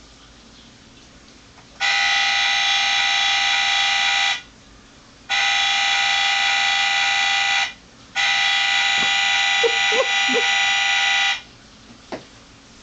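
Car horn honked three times in long blasts of about two to three seconds each, a steady blare of several tones at once.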